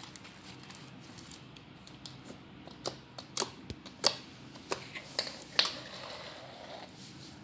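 Homemade glue slime being kneaded and pulled in the hands, giving scattered sharp sticky clicks and pops, most of them in the middle of the stretch.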